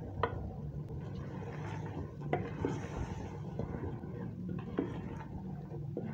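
A spoon stirring black chickpeas and yogurt in a metal pot, scraping and knocking against the pot now and then, over a steady low hum.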